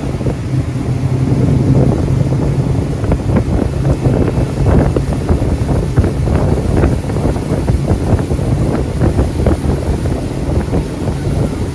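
A steady low engine hum, with many short clicks and knocks scattered over it.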